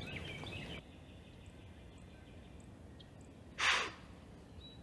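Quiet outdoor background with a few faint bird chirps, then a single short breathy exhale close to the microphone about three and a half seconds in.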